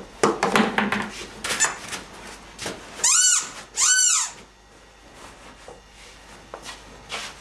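Two loud, high squeaks about a second apart, each rising and then falling in pitch, after a run of light knocks and rustling.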